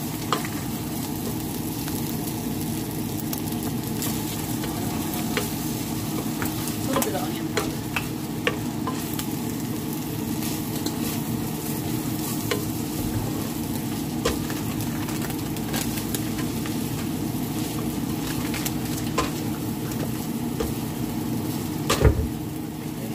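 A wooden spatula stirs uncooked rice, onion and carrot frying in a metal pot, under a steady sizzle. Short scrapes and taps of the spatula against the pot are scattered through it, with one louder knock near the end.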